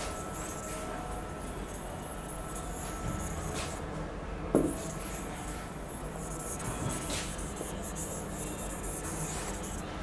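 Steady low room hiss and hum, with a few faint taps and one short knock about four and a half seconds in.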